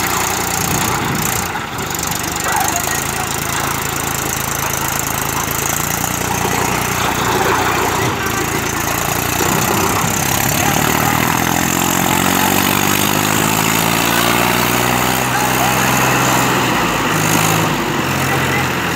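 Mahindra tractor's diesel engine running hard under load as it drags a loaded trolley through mud, its pitch rising around the middle as the revs climb.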